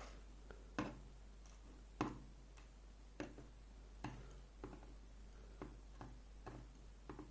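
Light clicks and taps of small lock parts and tools being handled and set down on a work surface, irregular, about one or two a second, the sharpest about one and two seconds in.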